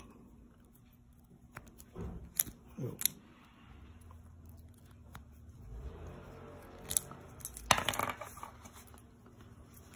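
Light handling noise with a few sharp clicks: a pointed pick working the latch of a Nissan 6-pin idle air control valve connector as a crimped wire terminal is released and drawn out of the plastic housing.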